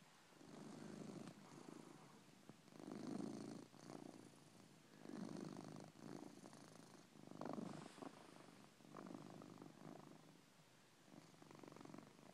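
A sleeping cat snoring faintly, a rasping snore on each breath in and out, about one breath every two seconds.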